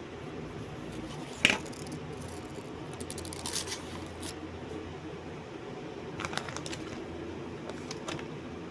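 Steady low hum and room noise with scattered small clicks and taps, the sharpest click about one and a half seconds in.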